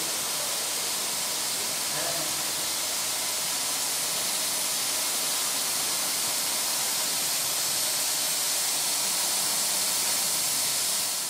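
Steady, loud hiss of steam escaping from a narrow-gauge steam locomotive standing in steam in the shed.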